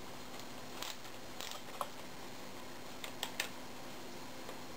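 A few light, scattered metal clicks and taps from a star-nut setting tool on threaded rod being handled and loosened to take it out of a bicycle fork's steerer tube, over a faint steady hum.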